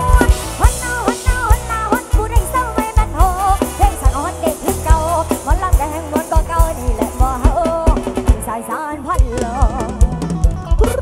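Thai rot hae band playing live: a drum kit keeping a steady, driving kick-drum beat under a lead melody that slides up and down in pitch. The drums thin out briefly about eight seconds in before the beat returns.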